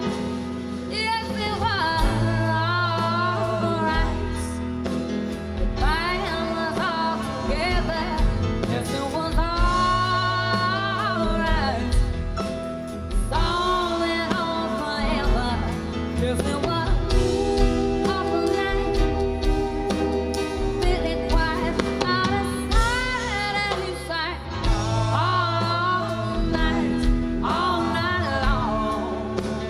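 A woman singing live with a rock band of drum kit and electric bass, her long held notes wavering.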